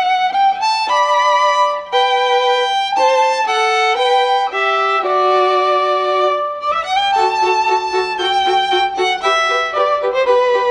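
Background music: a violin playing a melody of short held notes over a lower accompanying line.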